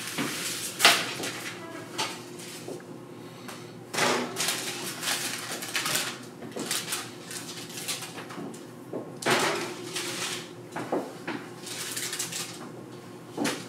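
Metal baking sheets lined with parchment paper being lifted off a stone countertop and handed over. There is a sharp knock about a second in, then several spells of paper rustling and sheet-metal scraping.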